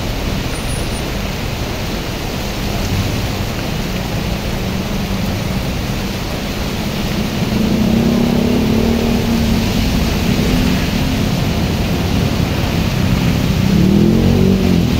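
Heavy rain and road traffic passing on a flooded road: a steady hiss of rain and tyres through water, with vehicle engines. From about halfway in the engines are louder and closer, as motorbikes pass.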